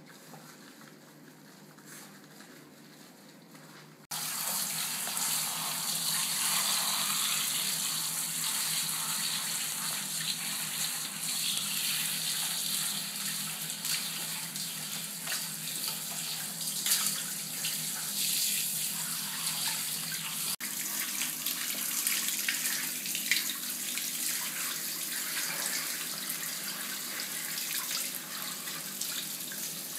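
Handheld shower head spraying water over a small wet Yorkshire terrier's coat in a shower tray: a steady hiss of running water. It comes on abruptly about four seconds in, after a quieter stretch.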